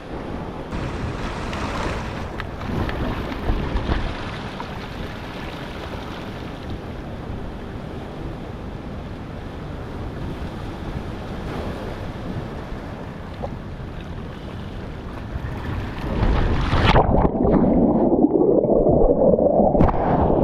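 Ocean surf breaking on the shore, with wind buffeting the microphone. About three seconds before the end, the sound turns louder and muffled.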